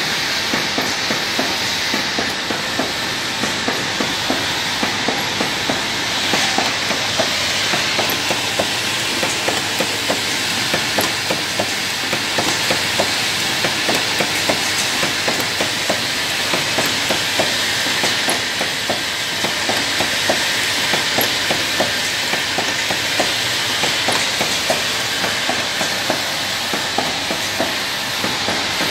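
Automatic spray-bottle filling and capping machine running, its rotary turntable and capping heads clacking in a regular rhythm over a steady hiss of compressed air from the pneumatic actuators.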